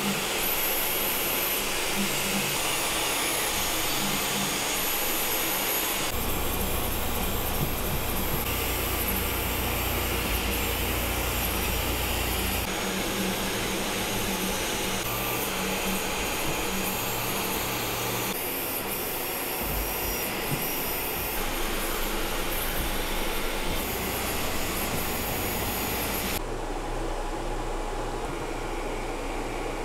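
Elegoo OrangeStorm Giga large-format FDM 3D printer running: a steady whoosh of cooling fans with the print head's motors moving, the mix shifting every few seconds. Near the end it drops to a duller fan hum.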